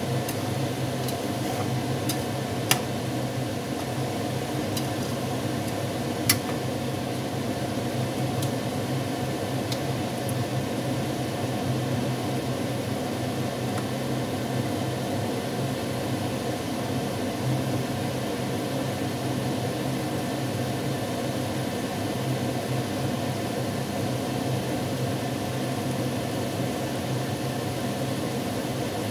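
A metal spatula clicks several times against an enamel pan while food is stirred in it, with two louder knocks about 3 and 6 seconds in. Under it runs a steady low hum and hiss from the cooking on the stove.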